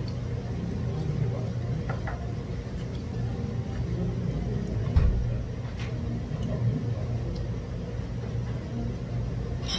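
Steady low machine hum with a few faint clicks and one dull thump about five seconds in.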